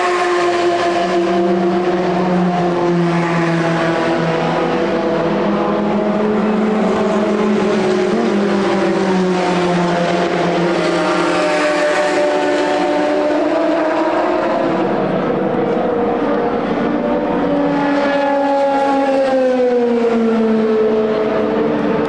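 Endurance racing car engines running at speed, several at once, their notes rising and falling as the cars pass and change gear. Near the end one engine's note falls steadily.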